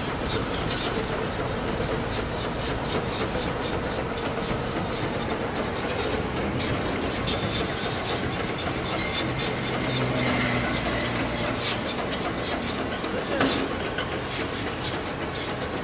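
CAT 340 Next Gen long-front demolition excavator working: its engine and hydraulics run under a steady scraping, crackling noise, with a brief squeal about thirteen seconds in.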